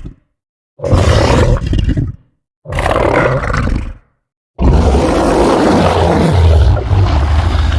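Liopleurodon creature sound effect: deep, loud roars with short silences between them. There are two roars of about a second and a half each, then a longer one that starts about halfway through and is still going at the end.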